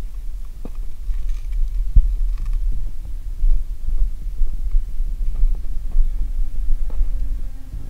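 Footsteps and gear movement picked up by a body-worn camera while walking across a leaf-littered forest floor: a steady low rumble with scattered knocks, the strongest about two seconds in.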